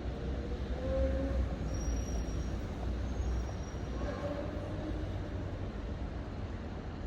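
City street ambience: a steady low rumble of motor traffic, with faint voices of passers-by about a second in and again about four seconds in.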